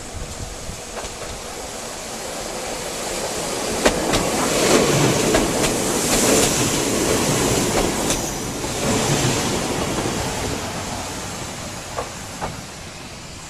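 Nagano Electric Railway 3500 series electric train passing, its wheels clacking over the rail joints. It swells in the first few seconds, is loudest in the middle and fades away near the end, with a few sharp clicks along the way.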